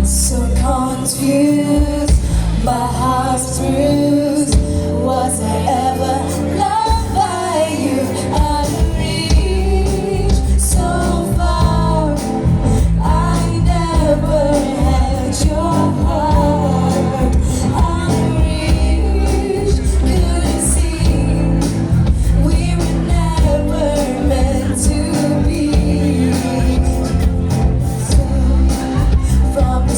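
A live band playing a pop song over amplified speakers, with a woman singing the melody over a steady bass and drum beat.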